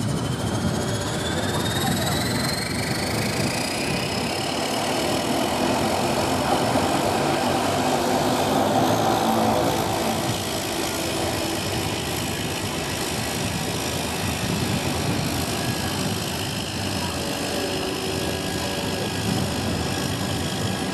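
Cessna Caravan floatplane's turboprop engine starting. A high turbine whine climbs in pitch over the first few seconds as the engine spools up and the propeller comes up to speed, then the engine settles into a steady idle.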